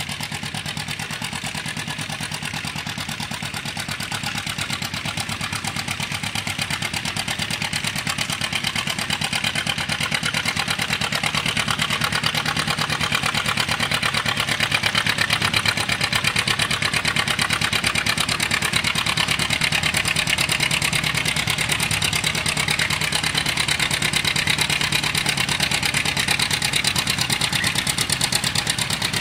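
John Deere 60's two-cylinder engine working hard under full load, pulling a weight-transfer sled. Its quick, even exhaust beat grows louder over the first half and then holds steady.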